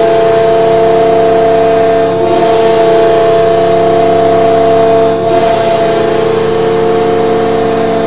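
Carolina Hurricanes' arena goal horn: a loud air horn holding one long, steady chord, dipping slightly about two and five seconds in.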